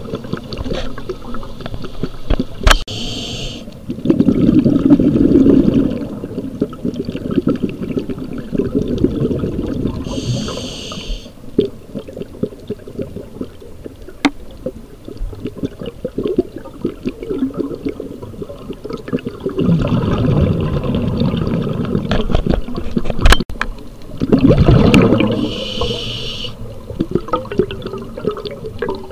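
Scuba diver breathing through a regulator underwater: three short hisses of inhalation, and loud bursts of exhaled bubbles gurgling and rumbling in between.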